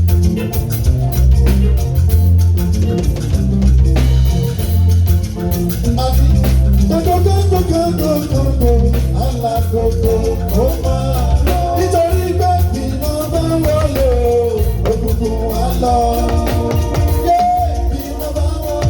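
Live band playing on stage during a sound check: a steady bass guitar and drum groove, with a bending lead melody line coming in about six seconds in.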